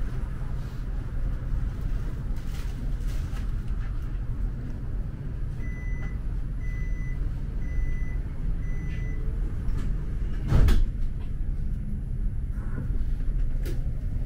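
Tram standing at a stop with a steady low hum. Four short beeps about a second apart sound as the door-closing warning, then a single loud thump.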